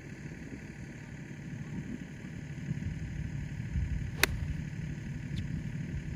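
An 8 iron striking a golf ball off fairway turf: one sharp crack of club on ball about four seconds in, over a steady low rumble.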